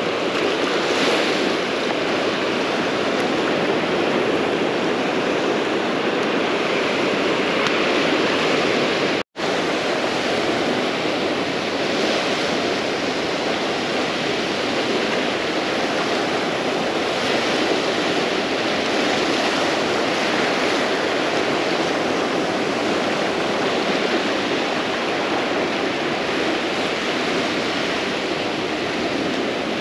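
Ocean surf breaking and washing up on a sandy beach, a steady rush that swells and eases every few seconds, cut off for an instant about nine seconds in.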